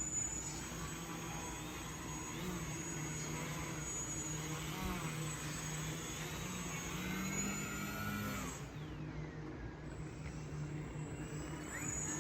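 A small engine running steadily, its pitch rising a little about seven seconds in and dropping back soon after.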